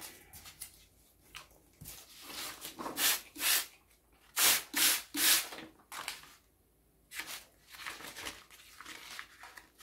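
Paper and lace being handled and laid into a tray: a series of short rustling bursts, the loudest three in quick succession about halfway through.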